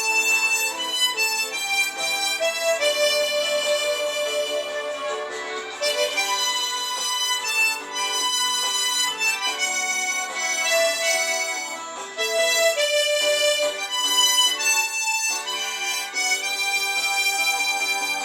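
Harmonica playing a slow melody in held notes, with chords sounding under the tune.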